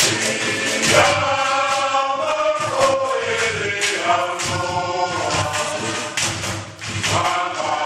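A group of adult voices singing a chant-like song together, with a steady beat of sharp percussive strikes.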